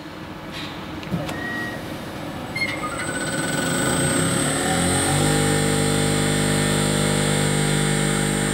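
Hartridge common-rail injector test bench starting up: a couple of sharp clicks, then its motor-driven high-pressure pump spins up, rising in pitch, and settles about five seconds in into a steady hum with a high whine as the rail is brought up to pressure for the test run.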